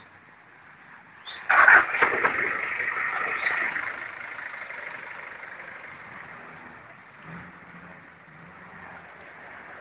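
A vehicle passes close by on the wet street: a sudden loud wash of tyre and engine noise about a second and a half in that fades over the next few seconds, leaving a steady background hiss.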